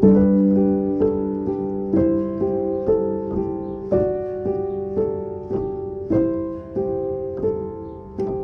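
Background piano music: gentle notes struck about twice a second, each ringing and fading.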